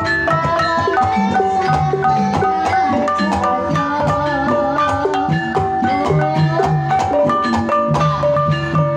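Javanese Banyumasan gamelan playing a tayub piece: bronze bonang kettle gongs struck in quick runs of ringing notes over kendang drums and other metallophones.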